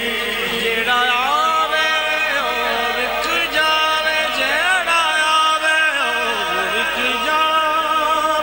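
A man sings a Punjabi naat (a devotional poem in praise of the Prophet) through a microphone, with no instruments. He draws out long ornamented phrases whose pitch slides and wavers, and holds the notes instead of speaking the words.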